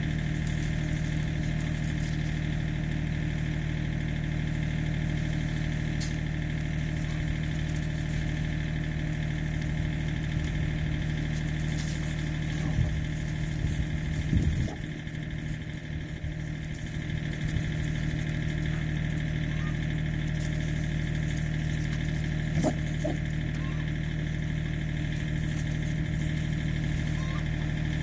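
A motor running steadily at idle, a low, even hum that does not change. A few brief louder noises break in about halfway through and again a little later.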